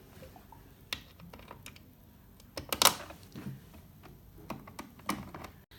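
Scattered small clicks and taps of screws being set and driven with a screwdriver into an NVR's cover. The loudest pair of clicks comes about three seconds in.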